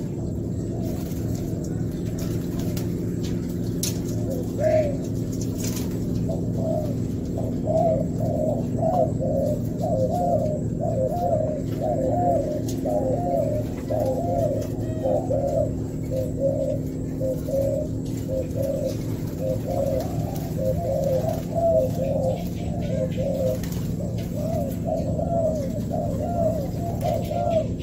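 Spotted doves cooing over and over, the calls beginning about five seconds in and running almost without pause, over a steady low hum.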